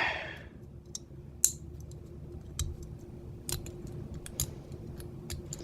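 Light, irregular metal clicks and ticks of a lock pick working the pin stacks inside the cylinder of a vintage Corbin padlock with an Abus keyway, over a faint steady hum.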